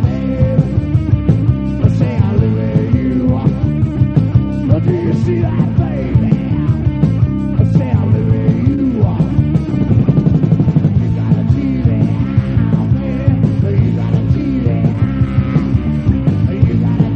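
Loud rock music with a steady, driving drum beat and no vocals: an instrumental passage of a band's song.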